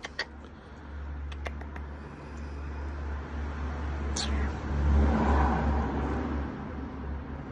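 A motor vehicle passing by: a low rumble that builds over several seconds, is loudest about five seconds in, then fades. A few short, sharp clicks come in the first second and a half.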